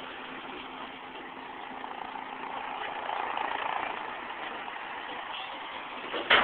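Steady engine and traffic noise, swelling a few seconds in as if a vehicle passes and then easing off. A sharp knock comes right at the end.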